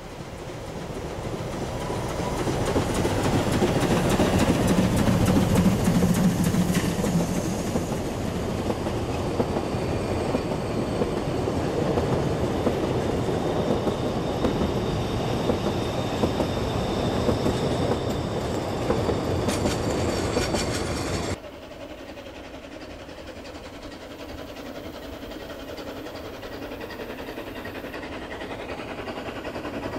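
Narrow-gauge (750 mm) steam train passing close by: the sound swells as the locomotive comes up and goes past, then the carriages roll by with a steady clickety-clack of wheels on the rail joints. About two-thirds through it cuts off suddenly to a quieter, distant train that slowly grows louder as it approaches.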